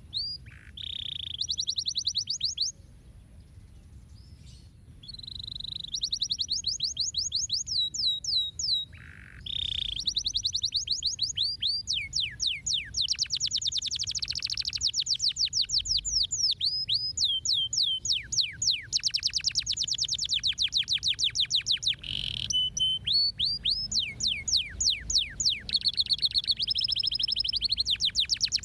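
Canary singing: long, fast trills of repeated down-sweeping whistled notes, changing from one rolling phrase to the next, with a short break about three seconds in.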